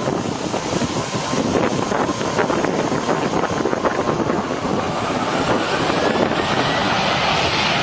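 Jet airliner engines running at high power, a loud steady rush with a faint turbine whine rising in pitch about halfway through, mixed with wind buffeting the microphone.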